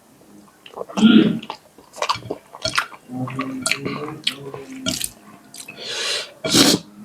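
Close-miked eating sounds: wet lip smacks and chewing, with louder slurping noises about a second in and again near the end.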